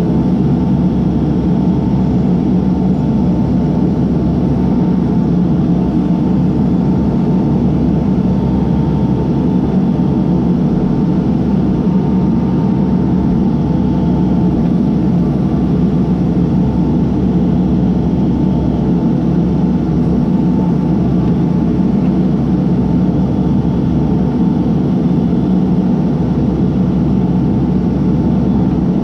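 Case backhoe's diesel engine running steadily at an even speed.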